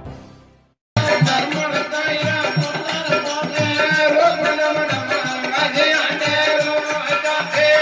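A fading intro sting ends in a moment of silence. About a second in, a Marwari desi veena bhajan starts abruptly: a steady drone, a regular drum beat and fast, even jingling.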